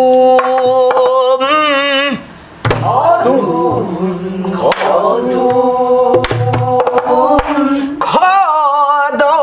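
Pansori singing: long held notes that bend in pitch with a wide vibrato, with a short break about two seconds in. A few sharp knocks fall between the sung phrases.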